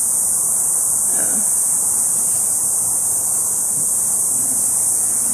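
Steady, loud, high-pitched buzz of a cicada chorus in the trees, holding level without a break.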